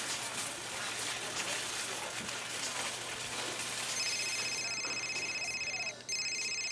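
Mobile phone ringtone starting about four seconds in: a high electronic trill with a brief break near the end, over a steady noisy background.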